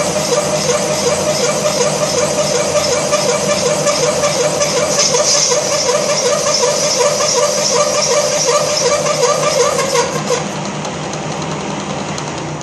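Horizontal boring machine's boring head cutting the rear main seal bore of a cast-iron Ford 302 engine block, a steady machine noise with a wavering whine through it. The cut is not going well: the tool is extended too far. About ten seconds in the whine stops and the machine runs on more quietly.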